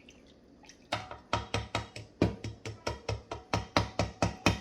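A utensil knocking rapidly against the side of a bowl while mixing a sauce, about five sharp knocks a second, starting about a second in and stopping just before the end.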